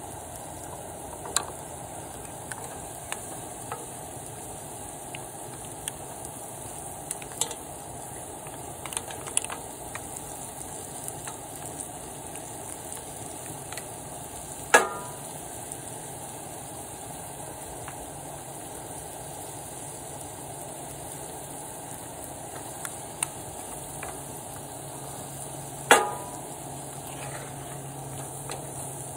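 Seafood sizzling steadily in a cast iron skillet on a propane camp stove, with scattered light clicks and two sharp knocks of a wooden spoon against the pan, one about halfway through and one near the end.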